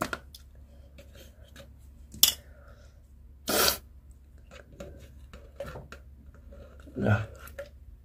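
Handling of a clear plastic jar with long metal tweezers: the tweezers click and scrape against the jar as something is worked loose inside. There are a few scattered clicks and scrapes, the loudest a short hiss about three and a half seconds in.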